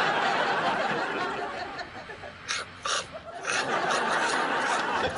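Sitcom studio audience laughing, a dense, sustained wave of laughter that dips briefly about three seconds in and then picks up again.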